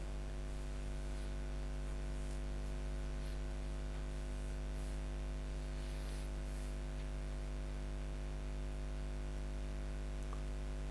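Steady electrical mains hum with a faint hiss, a low buzz with its overtones picked up on the recording line, unchanging throughout.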